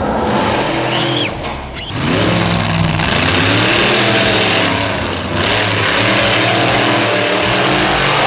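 Loud engine-revving sound effect of racing cars, engines droning and rising with a rush of noise, dipping briefly near the middle.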